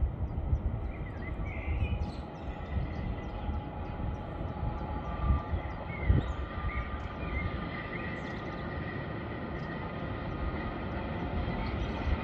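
A ZSSK Cargo electric locomotive approaching along the track: a low rumble with a thin, steady high whine that grows louder toward the end. Two short low thumps come about halfway through, and a few bird chirps sound early on.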